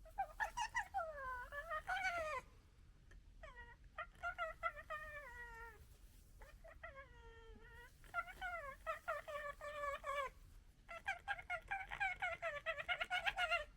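Red fox vixen gekkering at a dog fox: five bouts of stuttering, pitched chattering calls with short pauses between them. The last bout breaks into rapid pulses.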